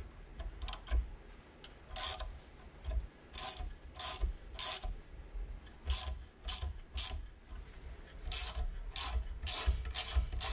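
Ratcheting tap handle clicking as a tap is turned by hand in short back-and-forth strokes, cutting threads through a small machined clevis. Each stroke is a brief rasping click, about one every half second, in runs with short pauses.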